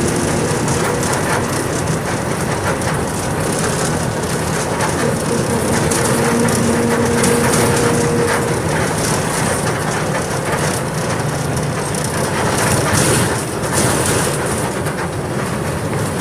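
Volkswagen 17.230 EOD bus on the move: a steady mix of engine, rattle and road noise, with a faint engine hum showing through for a couple of seconds mid-way.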